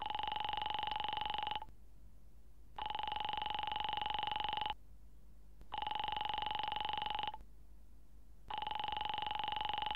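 Telephone ringing down the line: four steady rings, each about a second and a half to two seconds long with about a second between them. The call is being put through and has not yet been answered.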